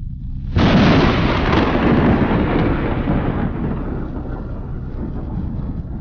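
A sudden loud boom about half a second in, dying away slowly over the following seconds.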